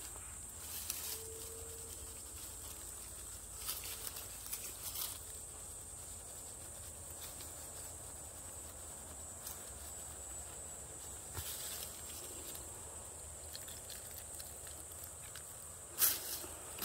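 Dry leaves and pine needles on the forest floor rustling and crackling in a few short bursts as a hand digs in and picks up a mushroom. The sharpest crackle comes near the end. A faint steady high hiss runs underneath.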